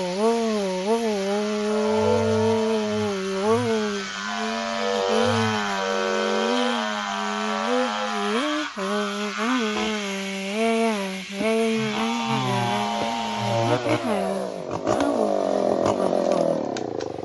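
Chainsaw engine running at high revs while cutting wood, its pitch dipping and recovering again and again. Near the end the sound changes to sliding, falling tones.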